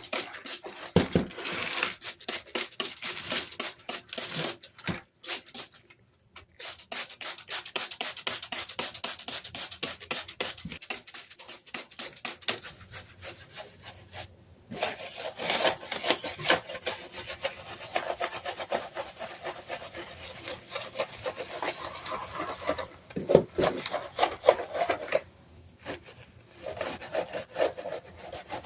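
Rapid, repeated scrubbing strokes on a Dell computer keyboard being cleaned, stroke after stroke with a few brief pauses.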